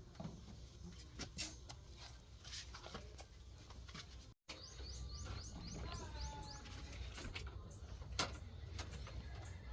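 A small bird giving a quick run of about eight rising chirps about five seconds in, over a steady low rumble, with scattered sharp knocks and taps throughout.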